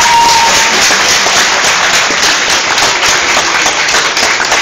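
Crowd applauding, dense and loud, with a single high held tone in the first moment.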